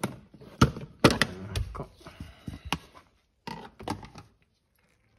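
Plastic retaining clips snapping loose as the side trim panel of a VW Golf Mk5 dashboard is pried off with a plastic trim tool: a series of sharp snaps and knocks over about four seconds, loudest about a second in.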